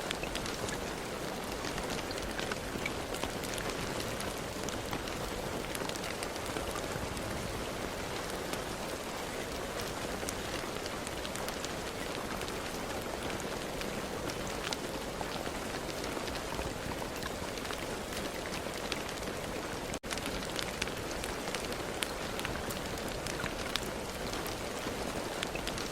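Steady rain falling, a dense even hiss with many distinct drop hits, broken once by a momentary gap about 20 seconds in.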